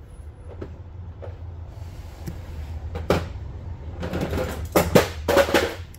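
Metal clatter and knocks of hand tools and engine parts being handled: one sharp knock, then a run of irregular clanks about four seconds in. A steady low hum runs underneath.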